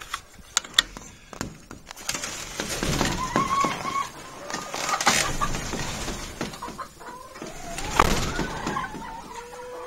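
Domestic hens clucking and calling, with a few held notes and some rising, drawn-out calls near the end. A door latch clicks and rattles in the first second. Knocks and rustles come through the calls, the loudest about eight seconds in.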